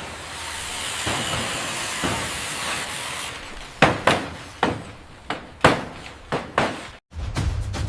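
A steady, loud hiss for about three seconds that cuts off suddenly, then a run of about eight sharp knocks at uneven spacing, like hammer blows on building work.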